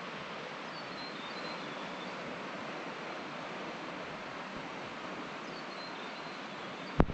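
Steady rushing outdoor ambience, with a bird giving short descending chirps about a second in and again around five and a half seconds. A single sharp knock at the very end is the loudest sound.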